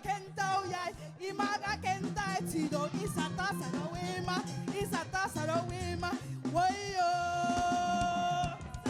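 Live African praise music: a lead voice sings over a band with a steady bass line, ending on one long held note near the end.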